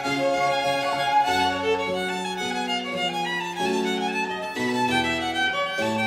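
Two violins playing a classical piece together, with held notes over a lower accompaniment whose bass steps to a new note about every half second to a second.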